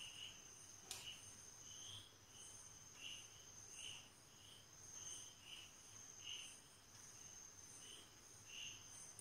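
Near silence with faint insect chirping: a chirp about every half second over a steady high whine. There is one soft tap about a second in.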